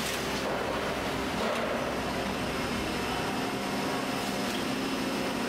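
Steady mechanical hum and hiss of factory machinery, with no distinct strokes or clicks; a low rumble underneath drops out a little over halfway through.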